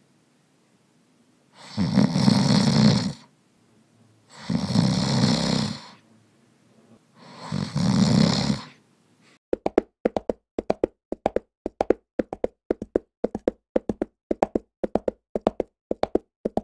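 A person snoring: three long, loud snores about three seconds apart. About halfway through this stops and a quick, even run of sharp taps or knocks follows, about two to three a second.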